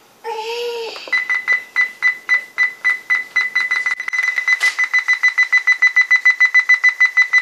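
Toshiba Satellite P745 laptop beeping on its own: a rapid string of short, high-pitched beeps, about three a second at first and quickening to about five a second about halfway through. The beeping comes with the laptop acting up, its Wi-Fi shutting off and its volume changing by itself.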